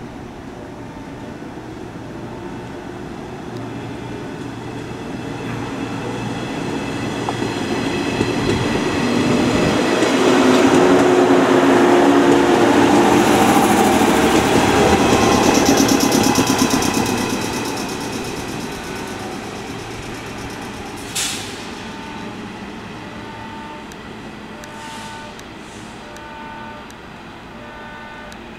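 JR West 115 series electric multiple unit pulling out of the station and passing close by. Its running noise builds to its loudest around the middle, then fades as the train draws away. A brief sharp hiss comes about three-quarters in, and a faint repeating two-note electronic beep follows near the end.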